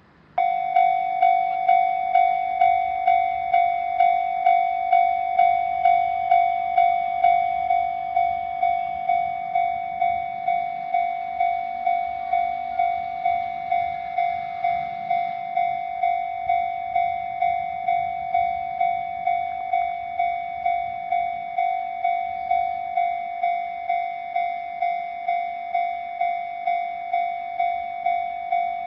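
Japanese railroad crossing's electronic warning bell starting up about half a second in, then ringing steadily at about two strokes a second: the alarm that a train is approaching. It is slightly quieter after about eight seconds.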